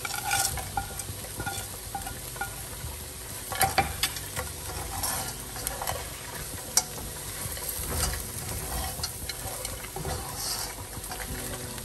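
Chicken frying in a pan with onion and spice masala, stirred with a utensil: a steady sizzle with scattered scrapes and clicks of the utensil against the pan.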